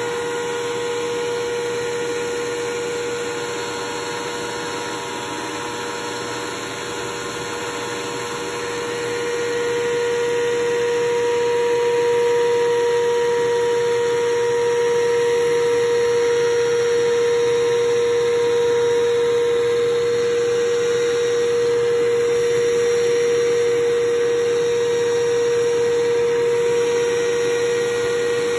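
Vacuum cleaner running steadily through its hose and round brush nozzle as it sucks small foam beads off a carpet, with a steady motor whine. It gets louder about nine seconds in.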